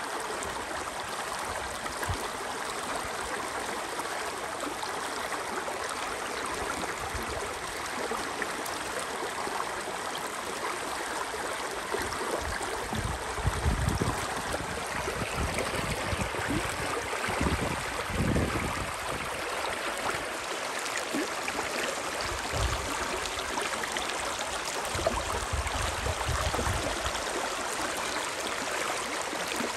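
The Spree river rushing steadily, an even wash of flowing water. A few short low rumbles rise under it around the middle and again in the latter part, the loudest just before the middle.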